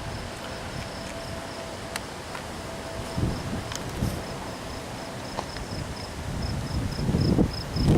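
Cricket chirping steadily, about four or five high chirps a second, over a low rumble that swells near the end.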